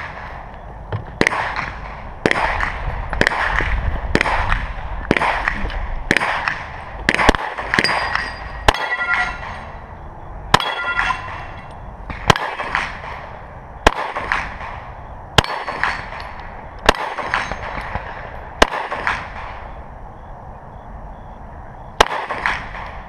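A string of about eighteen gunshots fired at a steady, unhurried pace, roughly one a second with a short pause near the end. Many shots are followed by the metallic ring of a struck steel target.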